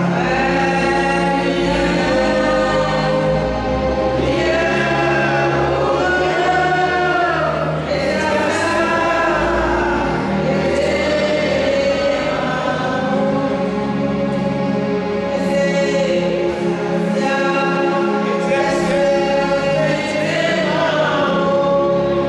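A choir singing a hymn in long, held phrases.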